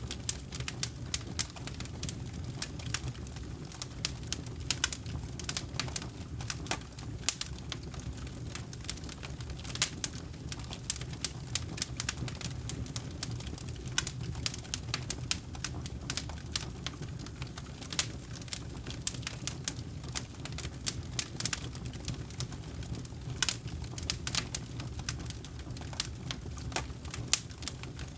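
Campfire crackling: irregular sharp pops and snaps of burning wood, several a second, over a steady low rumble of the flames.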